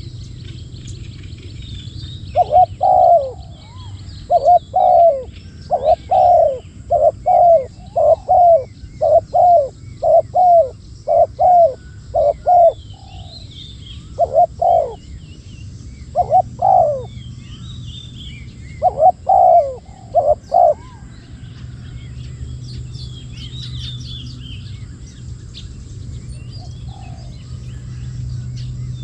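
Spotted dove cooing: a long run of low coos, about one a second, that stops about two-thirds of the way through. Faint chirps of small birds sound over it.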